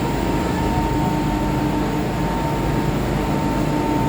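MTR M-train heard from inside the carriage: a steady hum and low rumble with a constant thin whine, and no sudden events.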